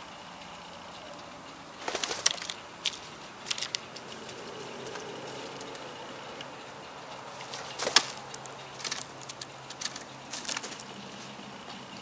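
Scattered sharp clicks and taps over a steady outdoor background: a cluster about two seconds in, a few more over the next second and a half, and another run from about eight seconds in, the loudest click at about eight seconds.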